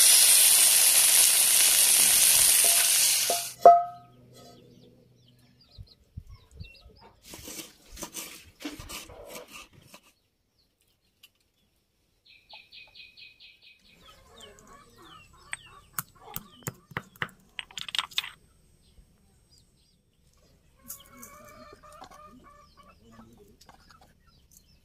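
Chicken pieces sizzling loudly in hot oil in a cast-iron skillet, cutting off suddenly after about three and a half seconds with a sharp clink. Then come quiet clicks and knocks of raw chicken and a spoon handled in a steel bowl, with a short rapid chirping bird call about halfway and faint calls near the end.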